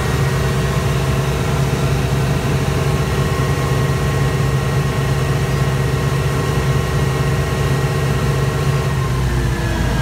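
Mitsubishi S12R-PTA V12 turbocharged diesel engine of a generator set running steadily at its 1500 rpm governed speed. Its pitch starts to drop slightly near the end.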